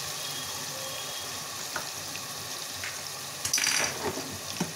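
Tomato and green chilli masala sizzling steadily in hot mustard oil in an aluminium pressure cooker, with a few light clicks and a short, louder rasp about three and a half seconds in.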